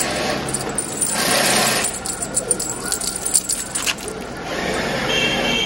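A small bell on a feather cat-teaser wand jingling and rattling in short clicks as a cat bats and bites at the toy.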